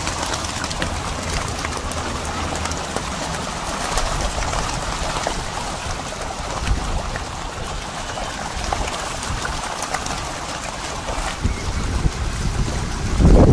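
Many fish thrashing in a crowded net at the surface, making a steady, dense crackle of splashing water.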